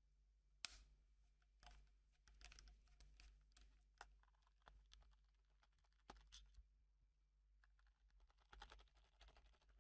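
Faint clicks and scratching of a screwdriver working the small screws of a Minolta Spotmeter F light meter's plastic housing, as the meter is turned in the hand during disassembly. There is a sharp click under a second in, scattered clicks after it, and a denser patch of scraping near the end.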